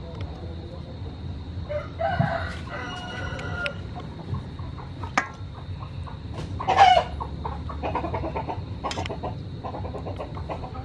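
Chickens clucking and a rooster crowing, with the loudest call about two-thirds of the way through.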